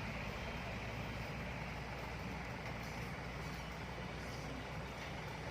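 Heavy diesel engine of earth-moving machinery running steadily with a low, even hum.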